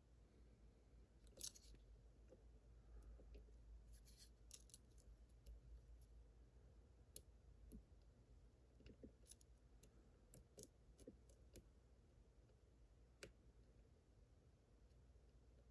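Faint, scattered light clicks and ticks of a lock pick and tensioner working inside an Evva DPI dimple padlock, over a low hum.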